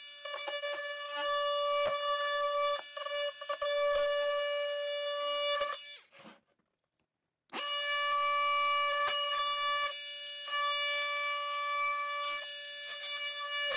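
Cordless oscillating multi-tool running with a steady high whine, its blade cutting into the plastic wall of a Packout crate with scratchy chatter. It stops for about a second and a half just past the middle, then starts again.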